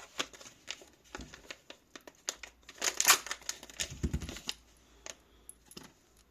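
Packaging crinkling and rustling by hand, with scattered small clicks and taps, loudest about three seconds in, and a soft thud about four seconds in.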